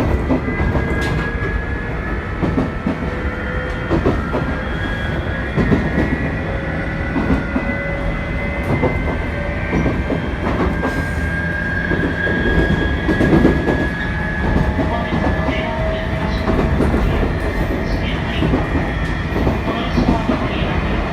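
A 719 series electric multiple unit running along the line, with a steady rumble, wheel clicks over the rail joints and a motor whine that rises slowly in pitch.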